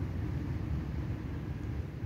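Steady low outdoor rumble with no distinct events, like wind on the microphone.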